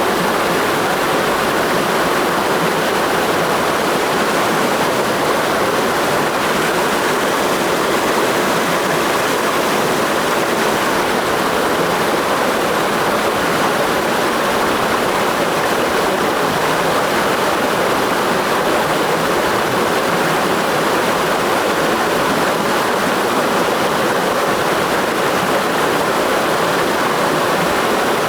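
Mountain stream rushing steadily over rocks in a steep valley, a loud even flow of water.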